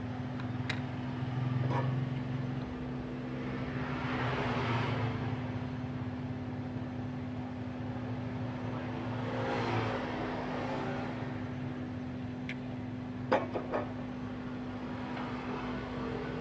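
Steady electrical hum, with two swells of broad noise that rise and fade, and a few light clicks near the end.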